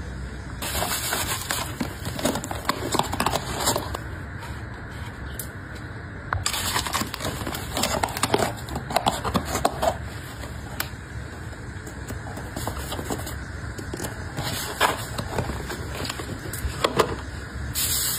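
Close-miked handling of paper packaging: white paperboard gift boxes being folded and set down, in three bursts of rustling and crinkling with sharp taps and clicks. Near the end comes the crinkle of shredded paper filler being worked with the fingers.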